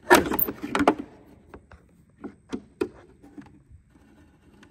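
Screwdriver scraping and rattling against the plastic side-mirror housing for about a second as it pries at the hidden tab holding the marker-light lens, then a few sharp separate clicks of the tool against the plastic.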